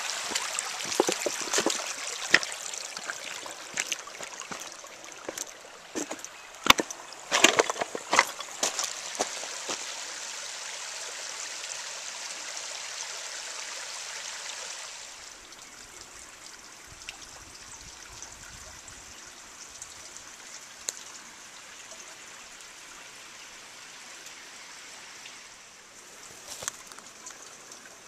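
Shallow creek water trickling and gurgling over rocks, louder at first and then fainter from about fifteen seconds in. A scatter of sharp clicks and knocks sounds through the first ten seconds.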